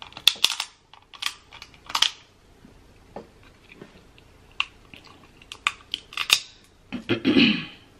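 Snow crab leg shells cracking and snapping in the hands as the meat is picked out: a series of sharp, close cracks, thickest in the first two seconds and again around five to six seconds, with a longer, fuller noise near the end.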